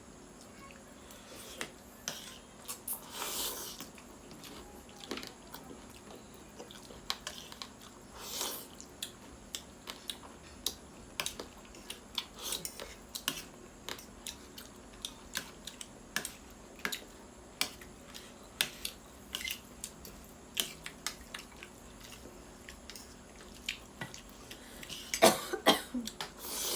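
Eating sounds from a mukbang of chicken thukpa: close-up chewing and mouth smacks, with frequent light clicks of a spoon or fork against a bowl and plate. There are a few louder bursts near the end.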